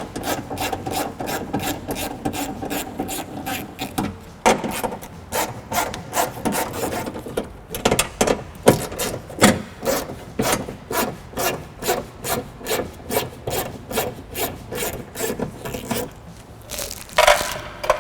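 Hand ratchet with a 10mm socket clicking steadily, about three clicks a second, as door bolts are backed out; the clicking stops about two seconds before the end.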